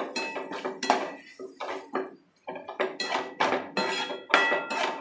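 Perforated steel spatula scraping and clinking against a metal kadai while onion-tomato masala is stirred and sautéed, in quick repeated strokes with short metallic ringing and a brief pause about two seconds in.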